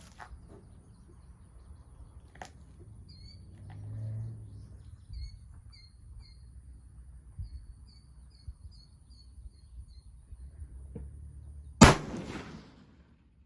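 Small birds chirping, then near the end a single loud shot from a .270 Winchester bolt-action rifle firing an 85 gr Barnes TSX handload, its report echoing for about a second.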